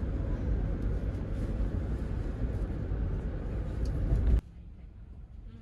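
Steady low rumble of a vehicle in motion, which cuts off abruptly a little over four seconds in.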